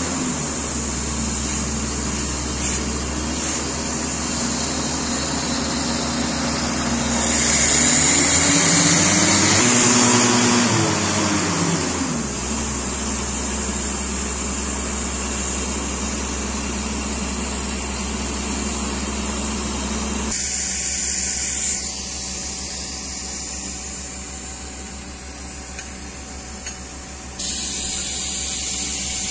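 Rock drilling rig boring into a rock slope for rock bolts (self-drilling anchors), a steady mechanical din. About seven seconds in it grows louder for a few seconds, its pitch rising and then falling.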